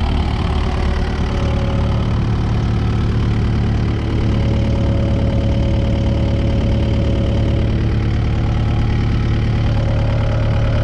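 Kubota excavator's diesel engine idling steadily, heard close with the engine compartment open.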